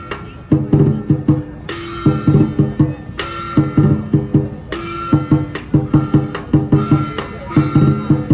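Chinese lion dance percussion: quick runs of drum strokes, with a ringing crash about every second and a half.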